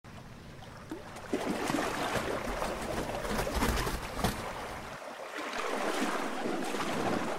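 Sea water splashing and churning: many short splashes over a steady wash. A low rumble under it drops away about five seconds in.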